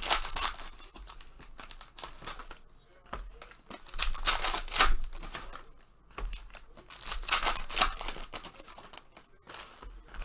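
Plastic trading-card pack wrappers being torn open and crinkled, in spells of rustling a couple of seconds each with short pauses between.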